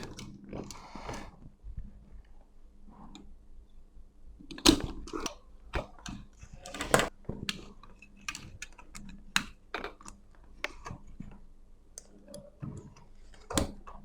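Irregular clicks and sharp knocks from handling a spring-loaded desoldering pump and soldering iron on a circuit board, the loudest snaps about five, seven and thirteen and a half seconds in.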